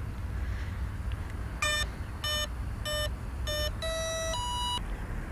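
Electronic speed controller of an RC plane sounding its start-up beeps through the brushless motor as the flight battery is plugged in: four short beeps, then two longer tones stepping up in pitch, signalling the ESC has powered up and armed.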